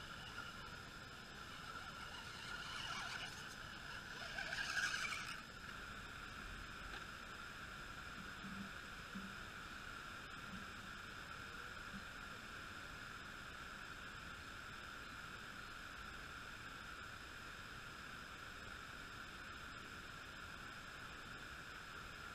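Radio-controlled rock crawler with an electric motor climbing over bare rock: two short bursts of motor and tyre noise in the first five seconds, the second louder, then only a faint steady high hum.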